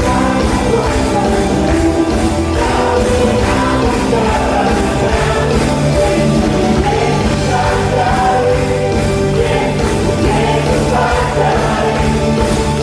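Choir singing an Indonesian praise song with a live band, drums keeping a steady beat.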